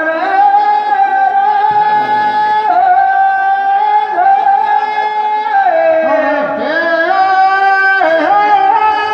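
A man singing Teja gayan, the Rajasthani folk song for Tejaji, in a high, piercing voice into a microphone, holding long notes of two to three seconds each and stepping between them.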